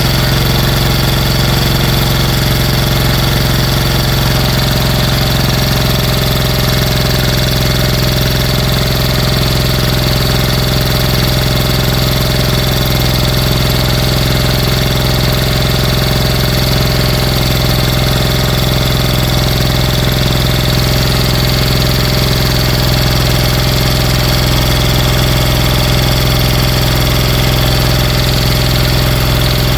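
Briggs & Stratton Intek 23 hp V-twin engine running steadily at one constant speed, rebuilt with its damaged internals (bent camshaft, filed-down crankshaft, a scored cylinder).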